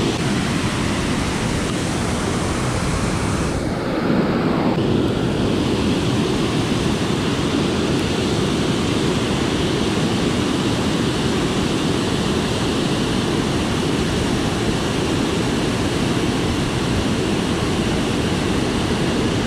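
Water pouring over a wide river spillway dam: a loud, steady rush of falling and churning water.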